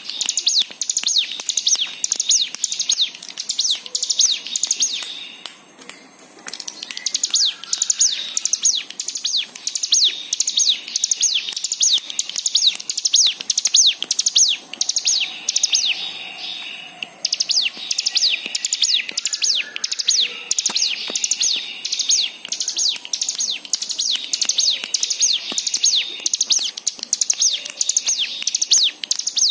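Cigun (ciblek gunung, a hill prinia) singing a fast run of sharp, high down-slurred chirps, about four a second. The run breaks off twice briefly.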